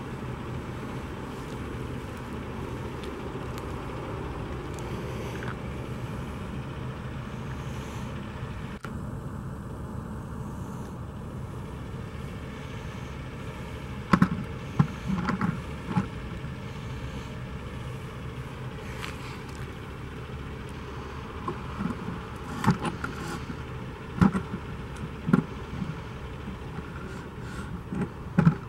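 Steady vehicle rumble with no voices, broken by a series of sharp knocks or clanks, several in a row about halfway through and more near the end.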